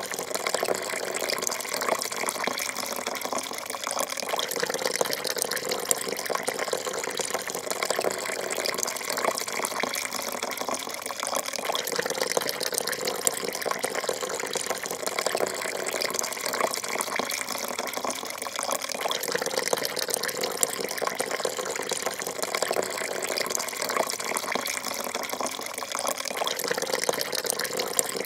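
A thin stream of coffee pouring steadily into a porcelain cup, splashing into the coffee already in it.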